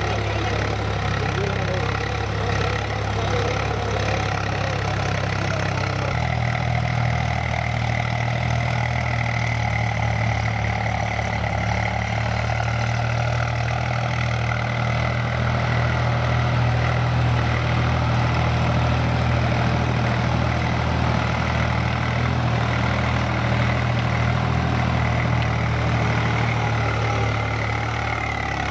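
Swaraj 735 FE tractor's three-cylinder diesel engine running steadily under load while it pulls a tine cultivator through soil. The engine note shifts slightly about six seconds in.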